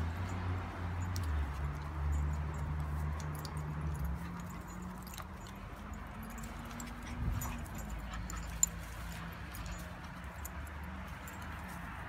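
Low play-growling from dogs wrestling, strongest for the first four seconds and then fainter, with small jingles and clicks of harness and lead fittings.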